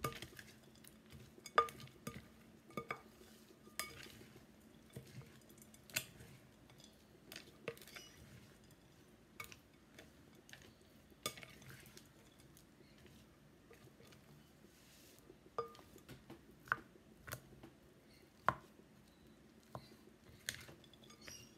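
Wooden spoon tossing a dry noodle and chickpea mix in a large glass bowl: irregular clicks and knocks of the spoon against the glass.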